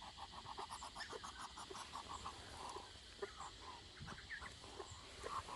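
Hens clucking faintly: a quick, even run of short clucks in the first two seconds, then scattered single clucks.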